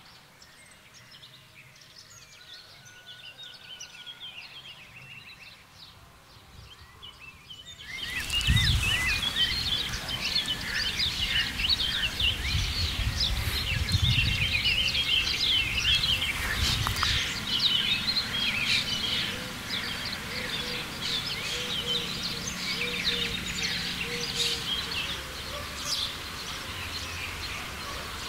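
Birds singing, many short chirps over steady outdoor background noise. The sound is quieter for the first several seconds and turns louder and fuller from about eight seconds in, with a low rumble under the birdsong.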